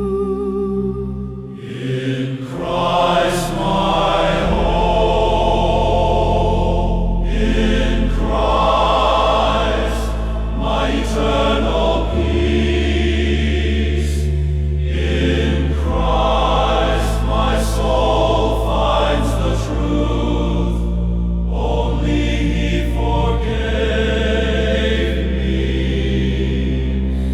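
Choir singing slow, sustained chords over a deep held bass note that shifts every few seconds.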